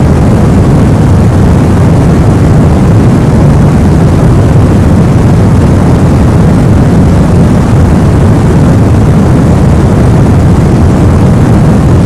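Steady, loud white-noise sleep track for babies, a deep even rumble weighted toward the low end with no change throughout.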